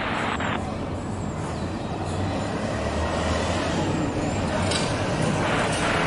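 Boeing 767 airliner on low final approach, its twin jet engines giving a steady rumble and roar that slowly grows louder as it comes nearer. A brief burst of hiss comes right at the start.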